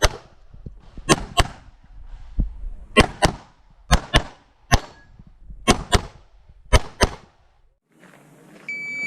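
Handgun shots fired in rapid pairs, each pair about a quarter second apart, six or so pairs in quick succession. Near the end, after a short pause, a steady high electronic beep sounds briefly.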